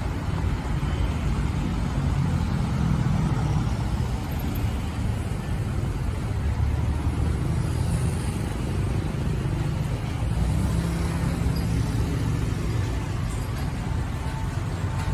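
Steady road traffic noise from passing cars and pickup trucks, a continuous low rumble that swells slightly now and then.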